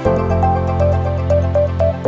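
Electronic background music: a repeating synth melody over a sustained bass note, with light regular percussion ticks; the bass chord changes right at the start and again at the end.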